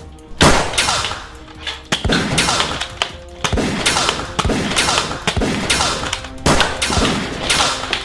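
A rapid run of sharp shots and impacts from toy foam-dart blasters in a Nerf fight, many with a quick falling sweep, over background music.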